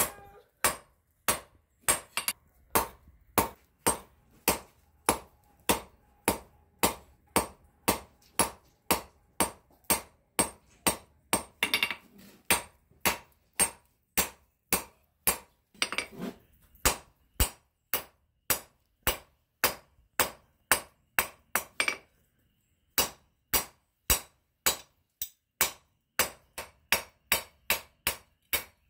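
1 kg Peddinghaus engineer's hammer striking red-hot flat steel bar on an anvil at about two blows a second, drawing the bar down to a tapered point. Each blow rings sharply, with one short pause about three quarters of the way through.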